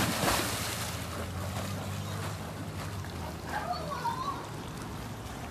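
Pool water splashing and sloshing as a German shepherd swims with a ball in its mouth. A loud rush of splashing at the start settles into quieter lapping, over a low steady hum.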